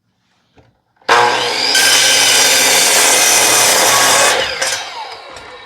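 Electric power saw starting about a second in and cutting through an oak leg board for about three seconds, then the blade spinning down with a falling whine.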